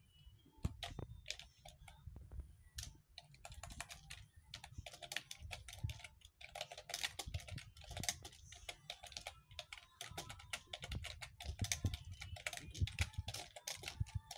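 Typing on a computer keyboard: quick, irregular runs of key clicks, sparse for the first few seconds and then almost continuous.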